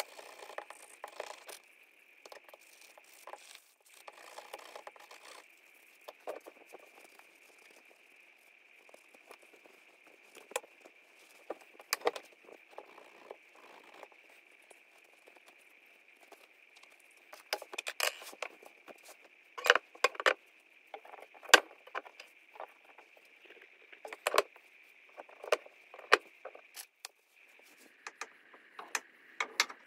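Scattered sharp clicks and clinks of hand work with small car parts and tools, thickest in the second half, over a faint steady high-pitched hum.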